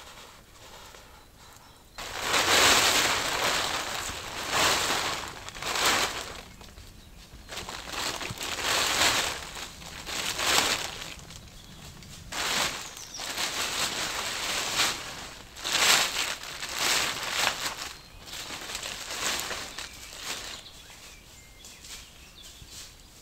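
Irregular bursts of rustling, each about a second long, starting about two seconds in.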